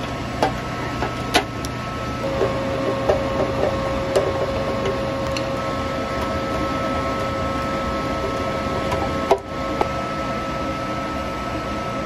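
Steady machinery hum and whir of running boiler-room equipment, with a few sharp metal clicks as a screwdriver tightens the mounting screws of a replacement boiler inducer fan motor: two clicks in the first second and a half, and two more about nine to ten seconds in.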